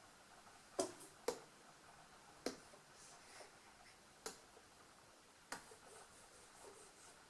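Five sharp clicks or taps of hard objects being handled, irregularly spaced, with faint rustling between them.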